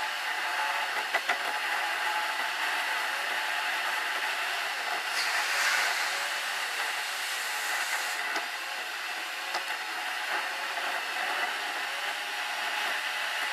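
Steady tyre and wind noise heard from inside a car travelling at expressway speed. The rush grows brighter and a little louder for a few seconds around the middle while the car is in a road tunnel.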